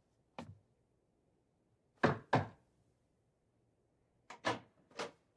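Knuckles knocking on a door in small groups: a single knock, then two quick knocks about two seconds in, then three more near the end.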